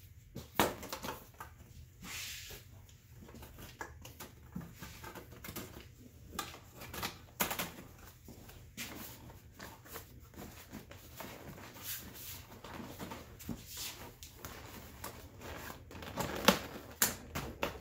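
Seat cover being stretched and worked through the seat frame by hand: irregular rustling, scraping and small clicks, with a louder cluster of knocks near the end.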